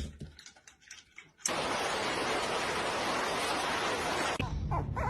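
A steady, even hiss starts suddenly about a second and a half in and cuts off suddenly about three seconds later.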